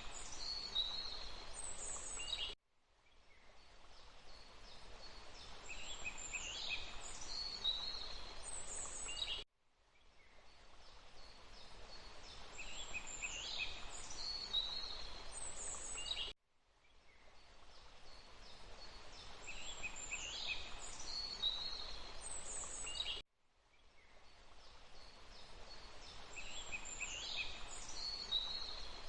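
Forest ambience of songbirds chirping and whistling over a steady rushing hiss. It is a short loop of about seven seconds that repeats four times, each time fading in and then cutting off abruptly.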